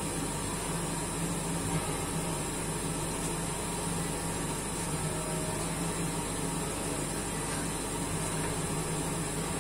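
Five church bells tuned to E-flat (E♭3, F3, G3, A♭3, B♭3), rung by hand from ropes. They swing and ring together in a dense, continuous, overlapping wash with no separate strokes, heard from the ringing chamber.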